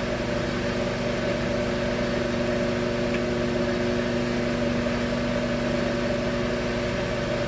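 Microwave oven running: a steady electrical hum with a fixed buzzing tone and no change in level.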